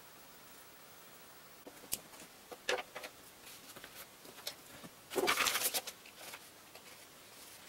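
Faint room tone, then a few light clicks and taps and a short rustle about five seconds in, from hands handling paper and watercolour painting materials on a desk.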